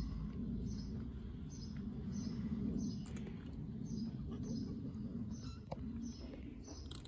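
A small bird chirping over and over, short high chirps at about two a second, over a steady low background rumble.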